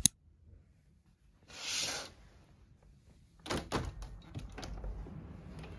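A soft swish, then a series of clunks and rattles as a sliding window is opened, followed by a steady low hiss.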